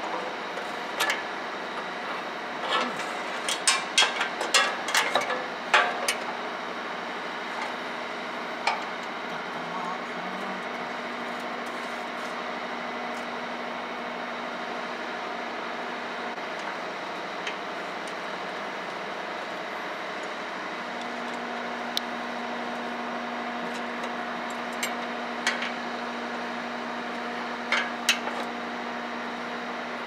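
Sharp metal clinks and taps of a spanner being worked on a steel diesel tank's filler neck, in a cluster a few seconds in and a few more near the end, over a steady mechanical hum.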